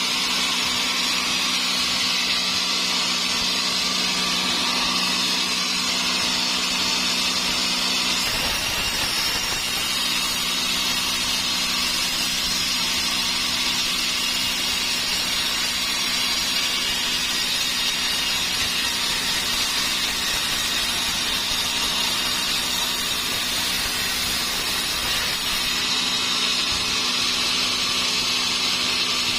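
Sawmill saw running steadily while sawing a large dry teak log into a beam. The sound grows fuller about eight seconds in and eases again near the end.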